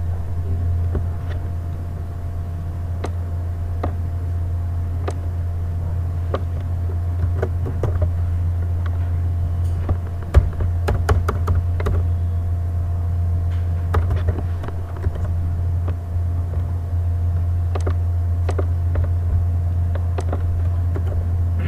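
Steady low hum with scattered clicks and taps of a computer keyboard and mouse as figures are typed into a form, the clicks thickest about ten to twelve seconds in.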